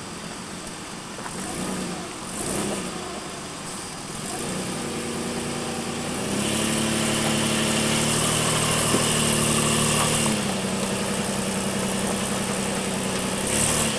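Lifted 4x4 SUV's engine working under load as it crawls through a rocky rut. The revs are low at first, pick up about four and six seconds in, hold higher for about four seconds, then ease off a little about ten seconds in.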